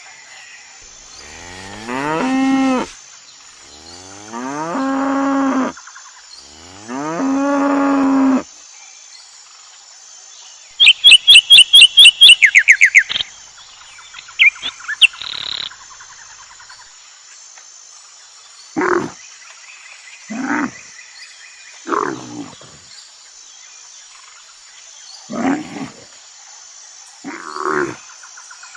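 Animal calls in sequence: three long, rising moos, as of a cow, then a rapid run of high-pitched chirps, then a handful of short, separate calls from another animal.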